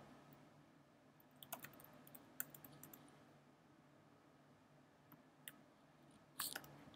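Faint, scattered computer keyboard keystrokes, a few separate taps with a slightly louder cluster near the end, against near silence.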